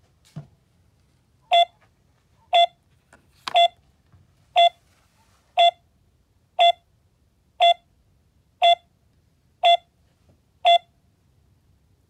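KERUI M120 motion-sensor welcome/alarm module beeping: ten short identical beeps about one a second. This is its exit-delay countdown after arming from the remote; when the beeps stop, the module is armed.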